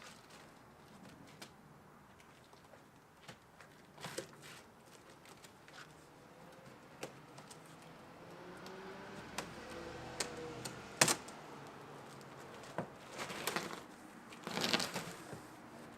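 A cardboard shipping box being opened by hand: scattered clicks and taps with short bursts of scraping and rustling, the loudest burst near the end.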